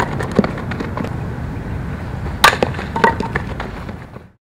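Sharp knocks on a dirt softball infield after a drag bunt, over a steady low outdoor rumble. A small knock comes just under half a second in, then a loud crack about two and a half seconds in, followed by a few lighter clicks. The sound fades out near the end.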